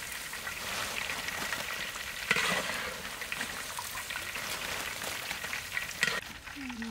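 Breaded chicken pieces deep-frying in a wok of hot oil: a steady crackling sizzle, with a louder crackle about two seconds in.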